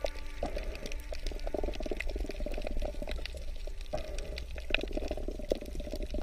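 Underwater reef ambience: a dense, irregular crackle of small clicks over a steady low rumble of water.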